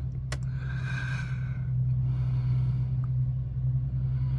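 Steady low background hum, with a short click just after the start and a brief soft hiss about a second in.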